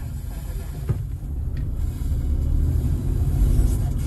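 A car driving, with a steady low rumble of engine and road noise and a faint click about a second in.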